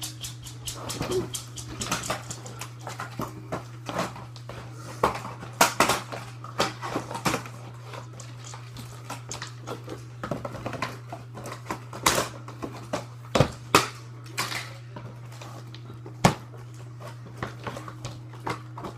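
Irregular clicks, taps and rustles of plastic Nerf blaster parts and packaging being handled, a few louder knocks among them, over a steady low hum.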